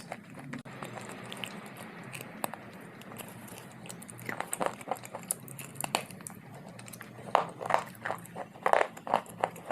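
Biting and chewing hard, dry clay close to the microphone. Soft, even chewing at first, then sharp, crisp crunches from about four seconds in, coming in quick clusters and loudest near the end.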